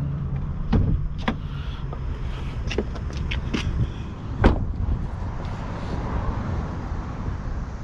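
A few sharp clicks and knocks over a steady low rumble, the loudest a thump about four and a half seconds in, as the Ford Expedition's hood release is worked.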